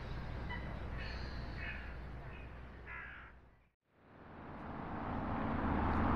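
Birds calling outdoors, a run of short repeated calls over the first three seconds against a low street hum. The sound then fades out to a moment of silence, and the hum fades back in.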